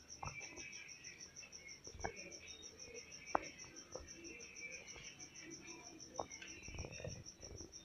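A cricket chirping in a fast, even pulse, faint and steady throughout, with a few sharp clicks and knocks scattered over it, the sharpest a little over three seconds in.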